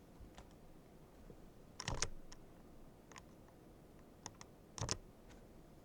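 Scattered light clicks over faint room tone, with two louder knocks about two and five seconds in.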